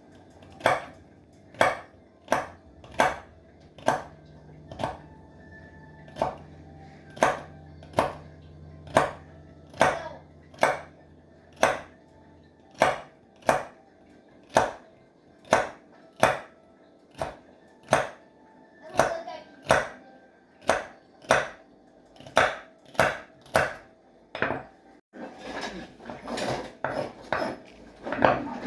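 Hand hammer striking hot rebar steel on an anvil, a steady rhythm of ringing metallic blows at about three every two seconds, followed near the end by a few seconds of rougher scraping and clatter.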